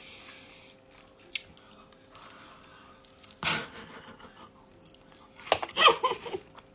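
A person chewing and crunching a mouthful of food close to the microphone: scattered small clicks and crunches, louder near the end.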